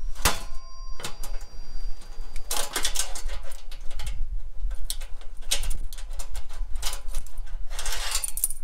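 Chain-type exhaust pipe cutter clamped on a steel exhaust pipe and rocked back and forth by hand, giving bursts of rapid metallic clicking and scraping as its cutting wheels work through the pipe.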